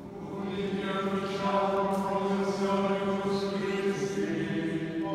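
Liturgical chant by male voices, held on long, steady reciting tones with a small step up in pitch about four seconds in. It sounds in a large stone church.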